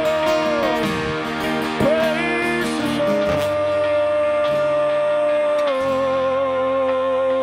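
Live worship band playing: electric guitars, bass and drums, with long held notes that waver slightly, one stepping down in pitch near the end.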